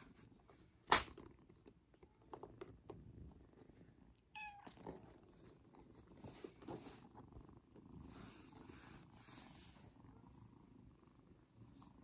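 Kitten purring steadily and quietly, with one short falling mew about four and a half seconds in. A single sharp click about a second in is the loudest sound.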